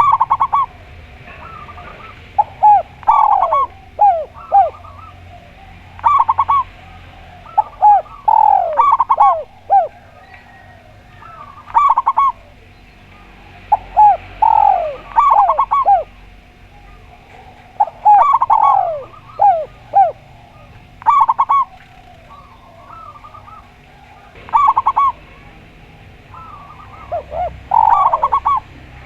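Spotted dove and zebra dove cooing. Phrases come every two to three seconds, each made of a few quick notes that slide downward plus clusters of short rapid notes.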